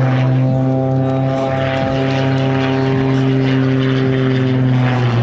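Extra 330 aerobatic plane flying overhead, its piston engine and propeller running with a steady, even note.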